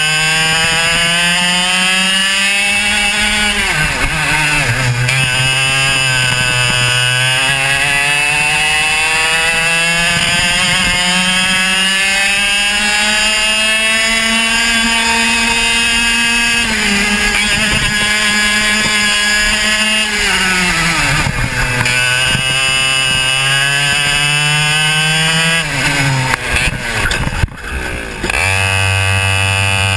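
Two-stroke racing kart engine at racing speed, its pitch climbing steadily along the straights and dropping sharply into the corners several times. Near the end the note turns rough and uneven as the revs fall off, then it picks up and climbs again.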